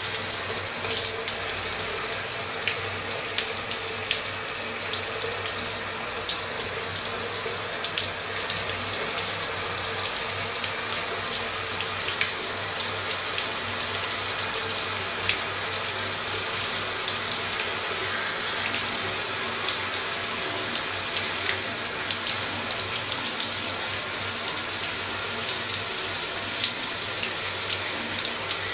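Water spraying steadily from a shower head: a continuous rush of running water with scattered small splash ticks.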